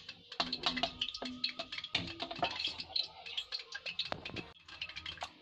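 A wooden spoon whisking a thin batter of curd, gram flour and water in a steel pot: quick, irregular clicks and taps against the pot with wet sloshing between them.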